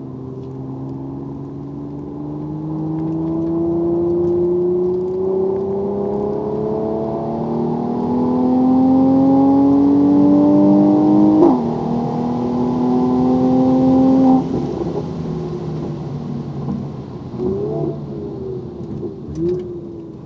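Mercedes-AMG C43's twin-turbo V6 under full throttle, heard from inside the cabin, its pitch climbing steadily through one gear until an upshift about eleven seconds in. About three seconds later the throttle lifts and the engine falls away, with two short rev blips on downshifts under braking near the end.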